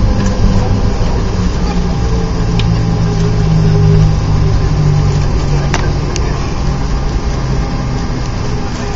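Jet airliner heard from inside the cabin while it rolls along the runway after touchdown: a loud steady engine and rolling rumble whose engine tones ease down and fade after a few seconds, with a couple of faint clicks about six seconds in.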